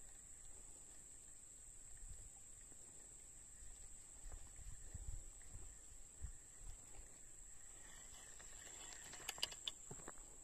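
Faint, steady high-pitched insect chorus. There are a few dull low knocks midway and a quick cluster of sharp clicks near the end.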